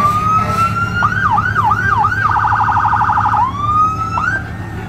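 Fire truck's electronic siren running through its tones: a rising wail held steady, then four quick up-and-down yelps, a fast high-low trill for about a second, and another rising wail that cuts off near the end. A truck engine rumbles underneath.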